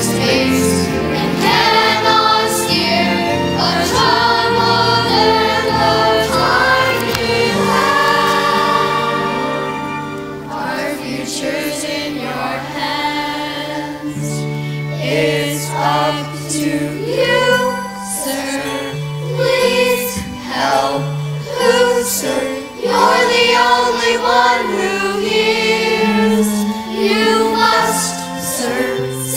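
A children's chorus singing a musical-theatre song together with instrumental accompaniment.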